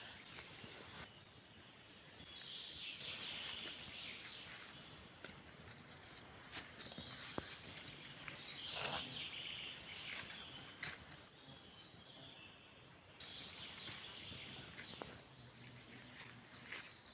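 Forest birdsong: several small birds chirping and singing over a steady outdoor hiss, with a few sharp clicks and rustles.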